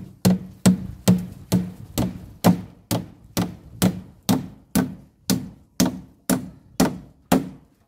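Wooden-handled hammer driving a nail through a board into a wooden 2x6 post: about sixteen even blows, roughly two a second, each with a short low ring from the wood. The blows stop just before the end, with the nail driven home.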